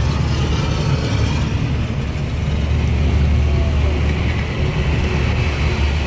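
Rapids water rushing and churning around a ride raft, heard from on board as a loud, steady noise with a deep rumble underneath.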